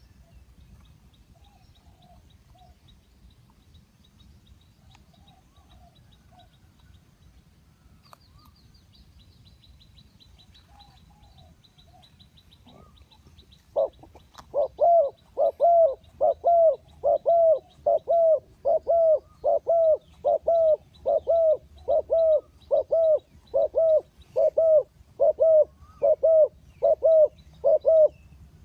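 A bird calling softly a few times, then, about halfway through, starting a long run of loud, short hooting notes at about two a second. A faint fast ticking sits underneath in the first half.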